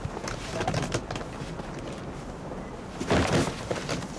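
A suitcase being lifted and handled: a few soft knocks, then a louder scrape and bump about three seconds in, over a low steady rumble.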